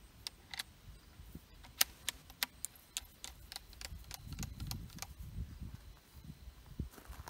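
Sharp metallic clicks, about a dozen in quick, uneven succession, from hands working the submachine gun, followed by low dull handling noise and a few more clicks near the end.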